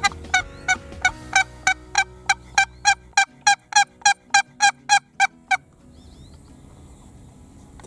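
A hunter's turkey call yelping: a long, evenly spaced run of about eighteen sharp hen yelps, about three a second, that stops about two-thirds of the way through. It is calling to draw a gobbler, and no turkey answers.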